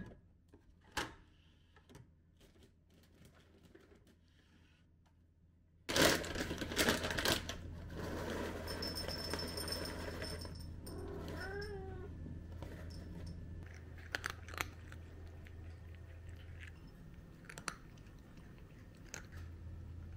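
A few light clicks over quiet room tone, then, about six seconds in, a sudden burst of rustling and clatter as dry cat food is prepared. A cat meows once, a short call that bends up and down in pitch, about halfway through.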